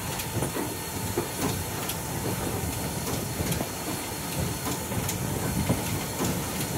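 Steam-hauled passenger train rolling along the track: a steady rumble and hiss, with irregular clicks and rattles of the wheels and cars.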